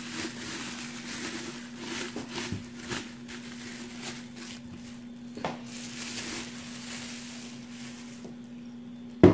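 Plastic bubble wrap rustling and crinkling as it is pulled off a ceramic vase, for about eight seconds before it goes quieter, over a faint steady hum. A single sharp knock right at the end.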